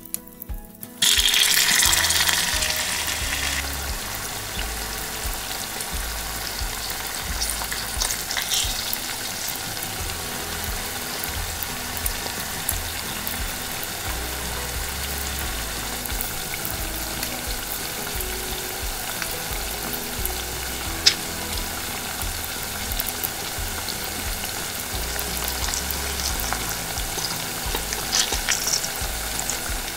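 Small ground beef patty lowered into hot oil in a miniature steel wok: a loud sizzle about a second in as it hits the oil, settling into a steady frying hiss.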